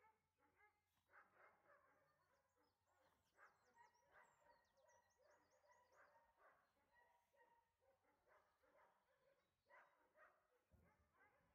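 Near silence, with faint dog sounds from two boxers at play and faint birdsong trills.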